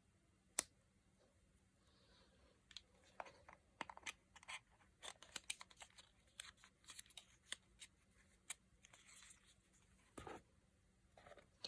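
Faint scattered clicks and light rustling of small cosmetics packaging being handled, with one sharper click just under a second in.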